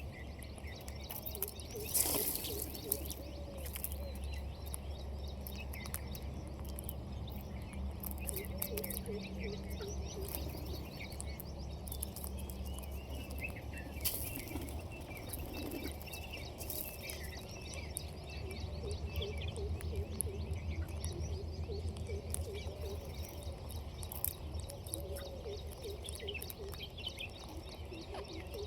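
Birds calling: scattered short chirps and many short, low arching calls, with a few sharp clicks, over a steady low hum.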